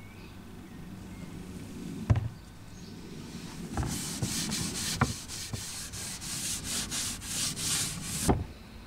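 A cloth rubbing boiled linseed oil into a wooden ash axe handle in repeated strokes, starting about four seconds in, with a few light knocks.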